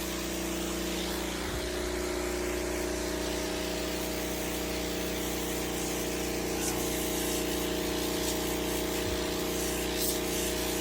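Carpet-cleaning machine running steadily: a motor hum with several fixed tones under a broad spraying hiss.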